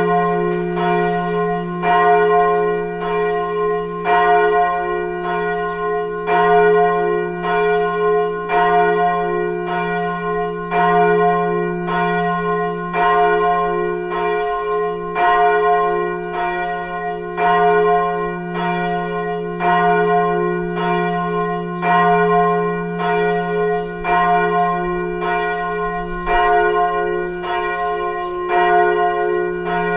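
Church bell ringing, struck about once a second, each stroke ringing into the next over a steady low hum.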